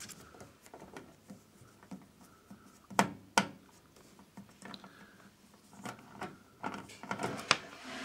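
Screwdriver turning a small screw out of the back panel of a DVD recorder's metal casing: scattered scrapes and light clicks, with two sharp clicks close together about three seconds in.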